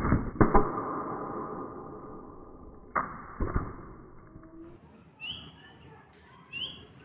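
Shots from a homemade rubber-band slingshot gun: a sharp snap and clatter as the shot strikes a metal can on a wooden stool, ringing away over a couple of seconds, then a second snap and clatter about three seconds in.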